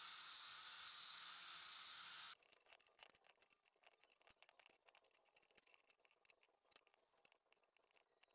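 Angle grinder disc running on welded steel, a steady grinding noise that cuts off abruptly about two seconds in. Then only faint, scattered metallic clicks as the steel bench vise's screw handle is worked.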